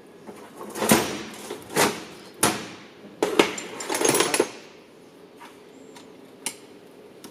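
Steel hand tools clanking and scraping against a bare Subaru EJ20 aluminium engine block during a teardown: about half a dozen sharp metal knocks in the first four seconds or so, then a few lighter taps.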